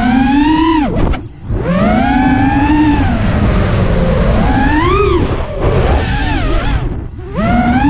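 FPV racing quadcopter's motors whining, the pitch sliding up and down with the throttle. The whine cuts out briefly twice, about a second in and again near the end, as the throttle is chopped, then spins back up.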